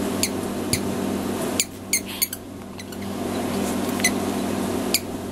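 A squeaky plush toy squeaking as a puppy chews it: about seven short, high squeaks, each falling in pitch, over a steady low hum.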